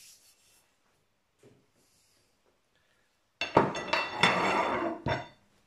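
Steel pipe pushed through a metal bench fixture, scraping and clanking metal on metal with a bright ringing, for just under two seconds starting a little over halfway in.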